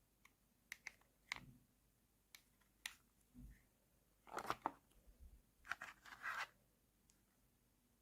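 Quiet, scattered light clicks and taps of small plastic miniature toy pieces being handled, with two short rustling scrapes about four and six seconds in, as of packaging being torn or pulled.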